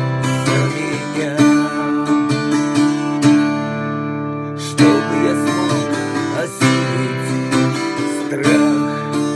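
Instrumental music: an acoustic guitar strummed every second or two over sustained chords.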